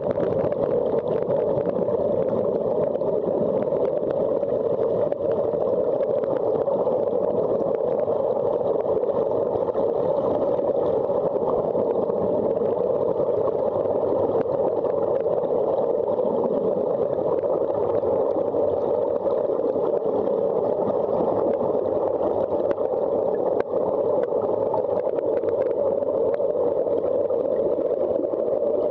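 Steady, muffled rush of air bubbling out of a surface-supplied Sea Trek diving helmet, heard underwater.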